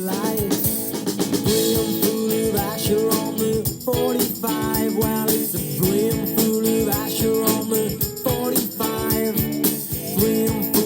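Background music with a steady beat and jingling bells.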